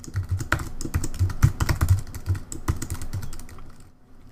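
Typing on a computer keyboard: a quick, uneven run of key presses that tails off about three and a half seconds in.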